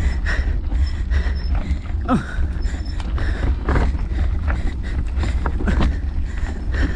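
Mountain bike climbing a loose gravel trail: the tyres crunch over stones and the bike rattles in quick, irregular clicks over a steady low rumble.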